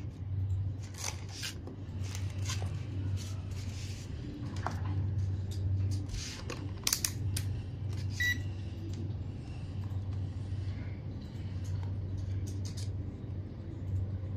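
Plastic film and wires rustling and crinkling as they are handled, with a short beep about eight seconds in from a digital multimeter switching on. A steady low hum runs underneath.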